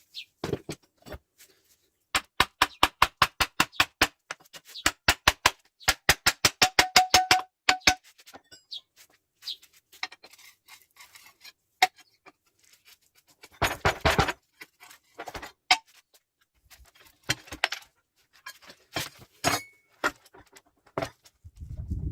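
Hammer blows on metal gearbox parts in fast, even runs of about four or five strikes a second, some ringing, then scattered metal clinks and a short scrape about halfway through.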